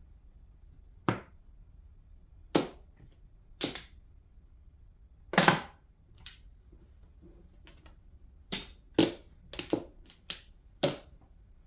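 Mahjong tiles clacking: about a dozen sharp clicks as tiles are set down on the table and knocked against each other, spaced out at first, then a quick run of clacks near the end as tiles in a row are pushed and arranged.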